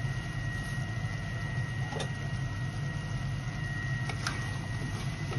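Steady hum of a kitchen appliance with a thin high whine running through it, while a pan of sauce simmers and gives a couple of small pops.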